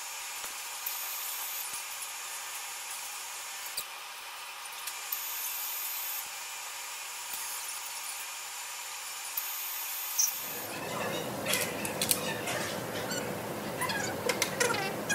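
Steady machine-shop hum with a few faint clicks as a chuck key is worked in a milling machine's drill chuck. About ten seconds in the sound changes, and a series of sharp taps follows: a plastic mallet tapping a workpiece down in a Kurt milling vise.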